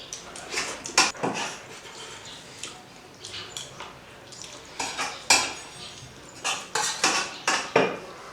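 Cutlery clinking and scraping against plates while eating biryani, irregular clinks and scrapes throughout, with the sharpest clinks about a second in and again around five seconds in.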